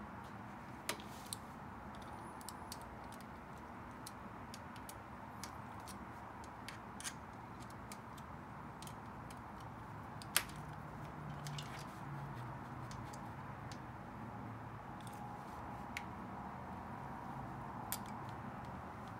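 Scattered light clicks and taps from handling a mountain bike's handlebar and stem during assembly, over steady room noise, with one sharper click about ten seconds in.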